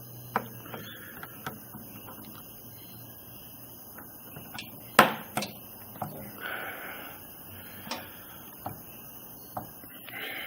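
Scattered small plastic clicks and knocks of hands working on a PC motherboard. Two sharp clicks close together about five seconds in are the memory modules' retention clips snapping shut as the RAM sticks are pressed back into their slots after being turned the right way round.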